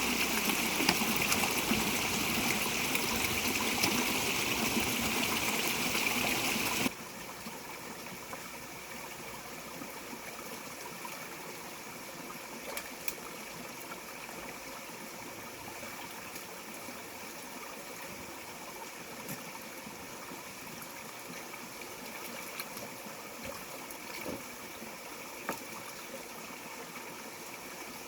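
Steady rush of running water, louder for the first seven seconds and then dropping suddenly to a quieter, steady flow with a few faint clicks.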